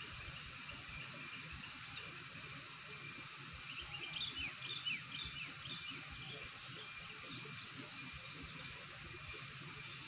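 Sooty-headed bulbul (kutilang) chirping a quick run of short notes for about a second and a half, around four seconds in, over a steady high hiss.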